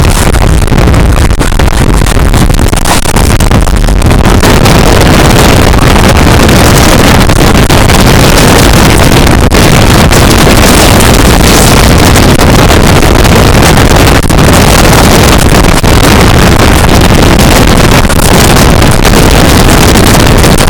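Express passenger train hauled by a ZCU-30 diesel-electric locomotive passing at high speed, a loud, continuous rush of wheels on rails and coaches going by, with wind noise on the microphone.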